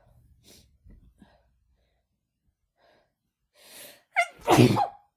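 A woman with a head cold sneezing hard: a few faint breaths, then a drawn-in breath and a sharp gasping catch about four seconds in, released in one loud sneeze.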